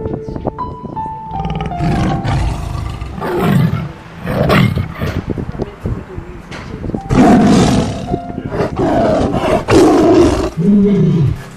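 A tiger roaring and growling: a run of about five loud, rough roars starting about three seconds in, with music underneath.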